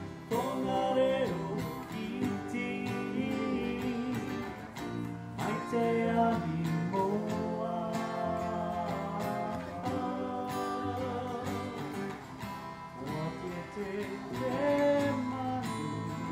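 Music for Tahitian dance: a song with guitar accompaniment, plucked and strummed, under a bending melody line.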